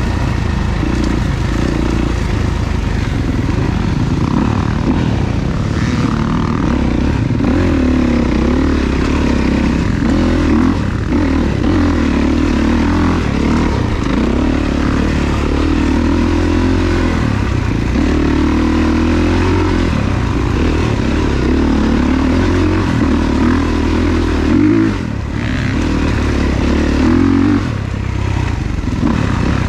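Off-road dirt bike engine running under constantly changing throttle, its pitch rising and falling as it is ridden, with a brief easing off about 25 seconds in.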